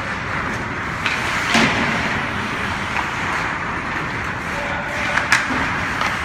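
Hockey game sounds: a steady wash of rink noise broken by a few sharp clacks of sticks and puck, about four in all, the loudest near the end.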